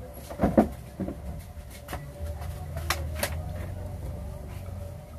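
Handling knocks and clicks at close range: two sharp knocks about half a second in, then a few single clicks, over a low steady hum.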